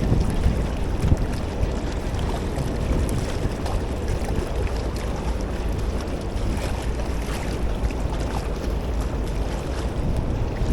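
Wind blowing across the microphone, a steady low rumble with no clear events.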